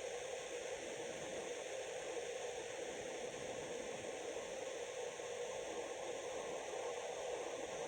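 Steady hiss with a faint hum underneath, unchanging throughout, with no distinct events.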